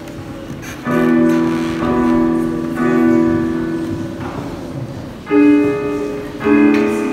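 Electronic keyboard played with a piano sound: slow held chords, about one a second at first, then a pause and two more chords near the end, each left ringing and fading.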